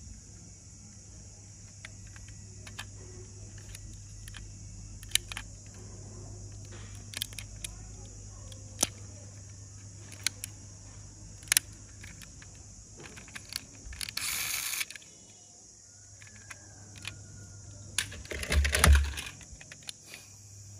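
Die-cast toy cars being handled: scattered small clicks and taps of the metal and plastic model, a brief rustle partway through, and a louder clatter near the end as toys are moved about in a plastic basket.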